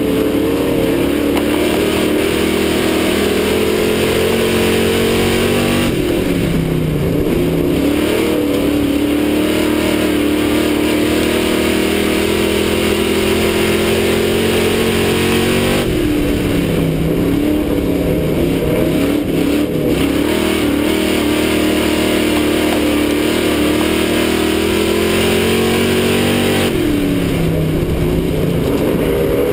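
A pack of Xtreme Stock race cars running laps of an oval. The engines climb in pitch down the straights and drop sharply as the drivers lift for the turns, in a cycle that repeats about every ten seconds.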